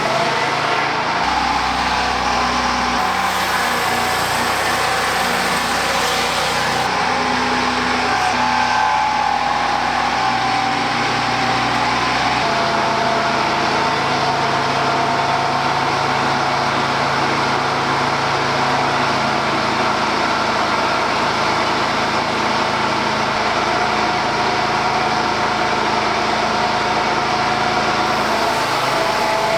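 Peterson swing-blade mobile sawmill running, its engine and circular saw giving a loud, steady whine as it mills the log.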